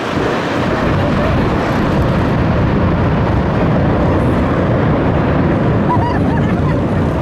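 Boeing 737-700's CFM56 turbofan engines, a loud steady jet rush as the airliner comes in to land.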